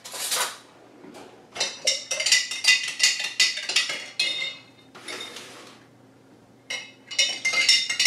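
Rapid runs of clinking, a metal utensil striking a glass jar with a ringing tone, as when stirring; a short swish comes a little past the middle.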